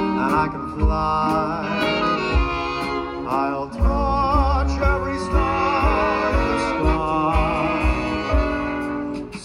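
Live swing band music: a sustained melody line with wavering vibrato over a steady low beat.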